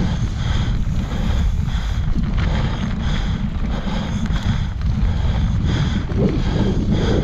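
Wind rushing over an action-camera microphone on a mountain bike moving along a dirt trail, with a steady, loud low rumble from the tyres and bike.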